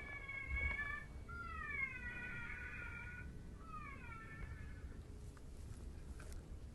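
Predator call sounding three drawn-out, whining distress cries that dip and rise in pitch, used to lure coyotes in. A low rumble of wind runs underneath.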